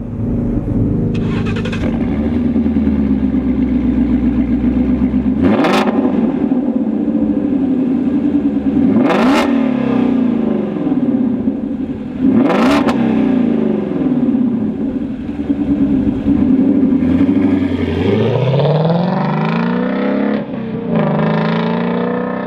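Ford Mustang GT350's 5.2-litre V8 running through a Corsa 3-inch cat-back exhaust with double X-pipe, held at steady revs with three brief sharp cracks in the middle. Near the end the revs climb twice.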